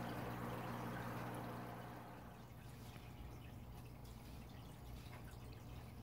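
Aquarium water trickling and dripping over a steady low hum. After about two seconds it drops quieter, leaving faint drips and small splashes.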